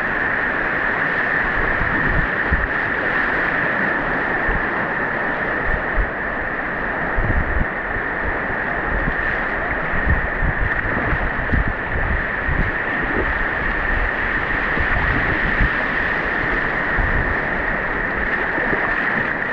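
Whitewater rapids rushing steadily around a kayak, with wind buffeting the microphone in low gusts.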